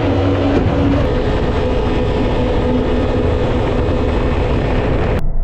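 Mini jet boat's 1053cc Yamaha four-stroke engine running loudly and steadily, with a dense rush of noise over it. Just before the end the sound abruptly turns dull and muffled.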